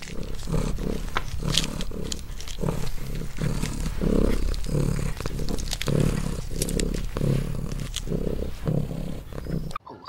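Porcupine eating, close up: low rhythmic sounds about twice a second, mixed with sharp crunching clicks. It stops abruptly just before the end.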